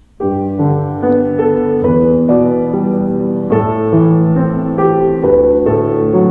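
Steinway piano played: a slow succession of sustained chords, the first struck just after the start, each new chord following about every half second to a second.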